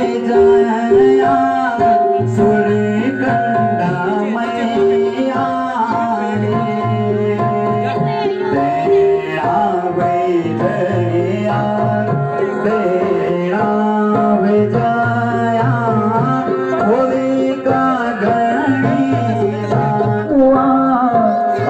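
Garhwali mangal geet (wedding song) performed live: a man singing to harmonium, accompanied by tabla.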